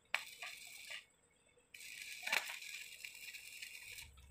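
Electric arc welding on a steel barrier pipe: the arc crackles steadily, breaks off for under a second about a second in, then strikes again and crackles on, with one sharper crack shortly after.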